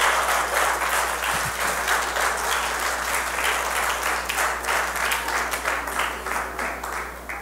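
Church congregation applauding in praise, a dense patter of many hands clapping that dies away near the end.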